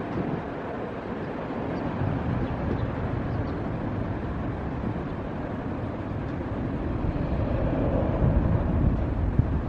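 Jet engines of a large twin-engine airliner climbing out just after takeoff: a steady low rumble that grows louder over the last few seconds.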